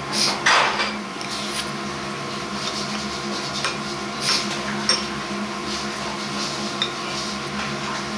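Dishes and tableware clinking now and then, a few sharp clinks standing out, over a steady machine hum.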